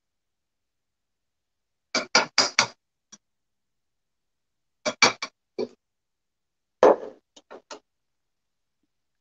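Kitchen utensils and dishes knocking and clinking against a ceramic bowl and the worktop as minced fish paste is worked: three short clusters of quick knocks, about two, five and seven seconds in, the last opening with the loudest knock.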